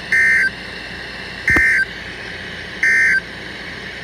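Emergency Alert System SAME end-of-message data tones: three short, identical bursts of two-tone digital screech, about 1.4 s apart, signalling the end of the alert.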